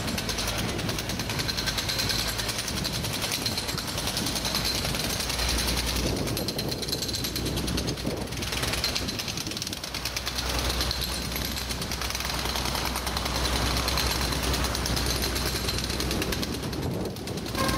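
Hydraulic breaker hammer on a demolition excavator's arm pounding rapidly and continuously at a brick building, over the steady low drone of the machine's engine.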